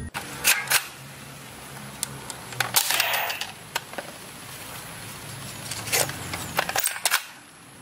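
Scattered plastic clicks and clacks from a toy blaster being handled and cocked, with a short noisy burst about three seconds in.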